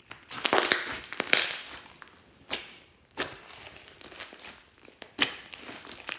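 Glossy slime being squished and stretched by hand, crackling and popping: a dense run of crackles in the first couple of seconds, then a few single sharp pops.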